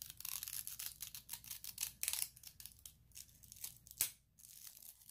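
Protective plastic film being peeled off a soft PVC notebook cover: an irregular crackling, tearing rustle, a little louder about two seconds in, with a sharp crack near the end.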